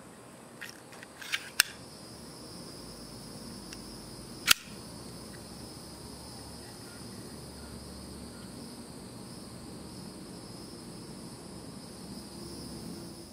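Sharp snaps of a Schrade OTF out-the-front knife's spring-driven action being worked: a few clicks in the first two seconds, then one loud snap about four and a half seconds in. A steady high-pitched whine runs underneath.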